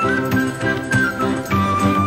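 Background music: an instrumental track with a quick, even run of repeated notes, about four a second, under a simple melody that steps down in pitch.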